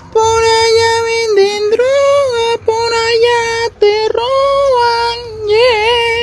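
A high-pitched voice sings or wails a run of long held notes, sliding up and down between them, with a wavering note near the end.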